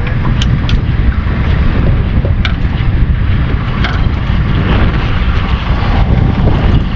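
Wind buffeting a GoPro microphone on an open boat: a steady heavy rumble, with a few short sharp clicks.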